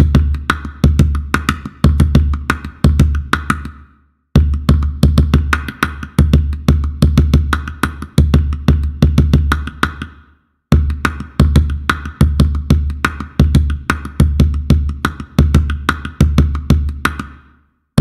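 Sampled calabash gourd drum from Native Instruments' West Africa Kontakt library playing rhythmic patterns: deep bass thumps mixed with sharper slaps and clicks, several strokes a second. The pattern stops and restarts twice, about every six seconds.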